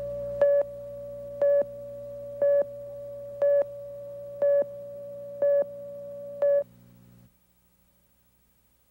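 Steady electronic tone over a low hum, with a louder, brighter beep once a second, seven times, before everything cuts off abruptly.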